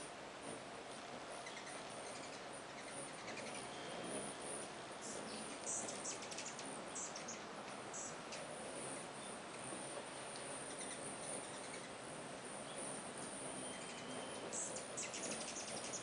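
A crowd of rufous and Anna's hummingbirds at a feeder: a steady buzzing hum of many wings, like a swarm of bees, with high squeaky chips and twitters that come in flurries, thickest about a third of the way in and again near the end.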